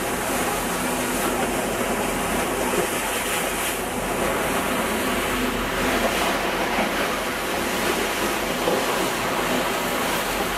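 Steady rush of sea water past the hull of a moving catamaran, with a faint, even engine hum underneath.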